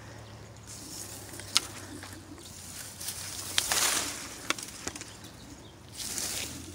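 Dry reeds and brush rustling and crackling as they are pushed aside by hand, with a few sharp snaps of stems and louder rustles about four and six seconds in.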